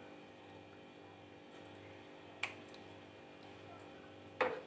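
Quiet room tone with a steady low hum, broken by a single faint click about halfway through and a brief louder sound near the end.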